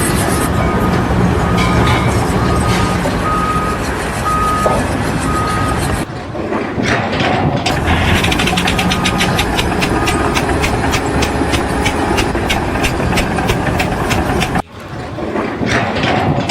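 Heavy machinery running, with a short high beep repeating about once a second in the first part, like a reversing alarm. After a sudden change comes a fast rattling clatter.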